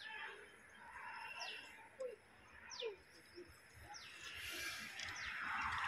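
Birds calling, a short high chirp sweeping downward, repeated about every second and a half, with a rising hiss of noise building near the end.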